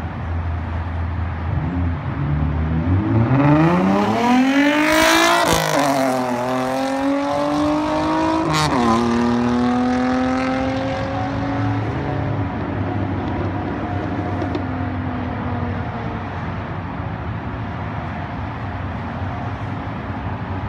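Nissan 350Z's 3.5-litre VQ35DE V6 with a straight-piped exhaust, running low and then revving up hard, its pitch climbing steeply for a couple of seconds before falling away. Partway through comes a sharp crack as the pitch drops a step, after which the engine holds a steadier note that slowly sinks and fades.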